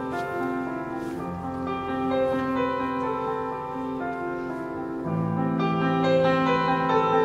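Grand piano playing a slow, gentle introduction with held notes, heard live in a concert hall; deeper bass notes come in about five seconds in.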